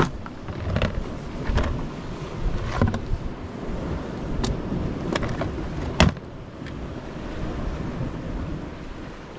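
Wind buffeting the microphone over the wash of surf on the rocks, with a few sharp knocks and rustles of clothing and gear close by, the loudest about six seconds in.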